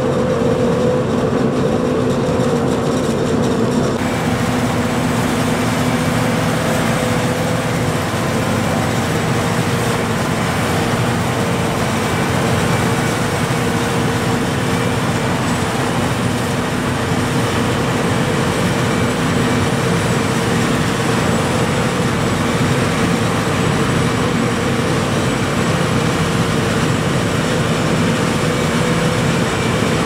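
John Deere self-propelled forage harvesters chopping maize, with tractors running alongside: a loud, steady mechanical drone with a constant low hum. A thin high whine joins about four seconds in.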